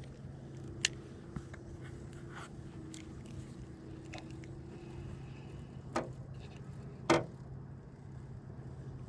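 A steady low hum, with a few sharp knocks, the loudest about seven seconds in.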